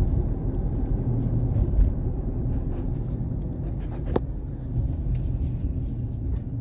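Low, steady rumble of a car heard from inside its cabin, with one brief click about four seconds in.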